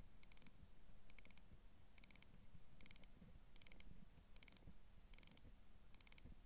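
Faint ratchet clicking of a Hamilton Khaki Field Mechanical's hand-wound H-50 movement as its crown is turned to wind the mainspring. Each turn gives a quick run of tiny clicks, about one turn every 0.8 s, eight in all.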